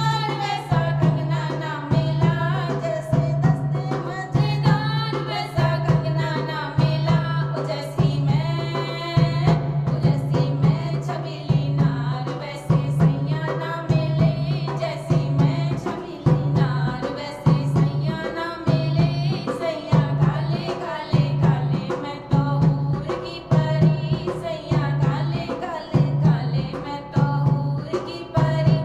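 A woman singing a Hindi folk khayal wedding song over a steady hand-drum beat.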